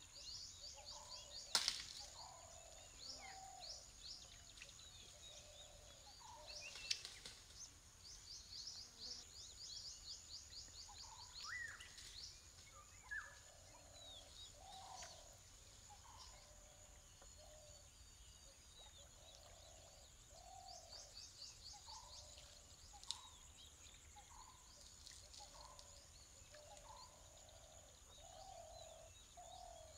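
Faint birdsong: rapid high chirps and trills over a lower call repeated about once a second, with a thin steady high whine behind. A few sharp snaps stand out, the loudest about one and a half seconds in.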